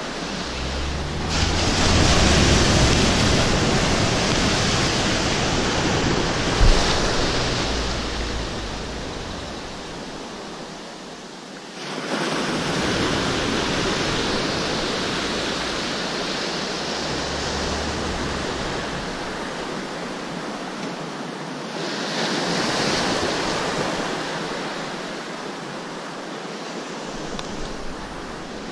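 Ocean surf breaking and washing in long swells that rise and fall, with wind buffeting the microphone. A single brief thump comes about seven seconds in.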